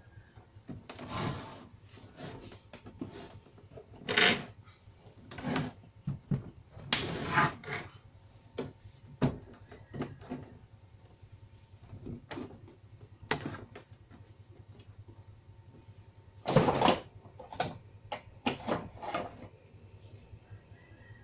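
Irregular clunks, knocks and short scrapes from a 29-inch CRT television's plastic cabinet being handled and shifted on a wooden workbench. There are about a dozen of them, the loudest about four seconds in and again about sixteen seconds in.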